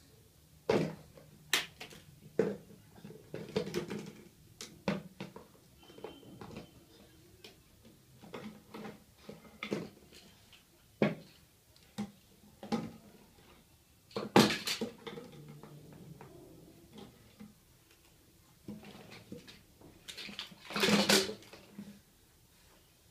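Toddlers handling plastic toys and a plastic basket: a scatter of separate knocks and short clatters, the loudest a sharp knock about fourteen seconds in and a longer rattling clatter about twenty-one seconds in.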